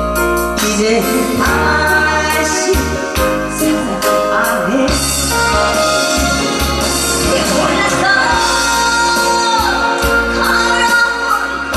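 A woman singing with wavering held notes over loud amplified backing music, with a steady beat of drum strokes.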